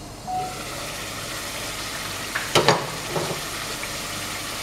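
Beef, tomatoes and spices sizzling steadily in hot oil in a pot. There is a short clatter against the pot a little past halfway.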